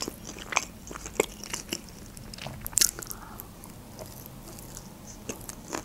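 Close-miked chewing and biting of a sushi roll: irregular clicks and soft crunches from the mouth.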